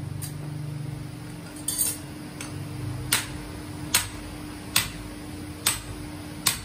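Hand hammer striking a red-hot steel axe head held in tongs on an anvil: sharp metallic blows about one every 0.8 s, starting with a quick double strike, over a steady machine hum.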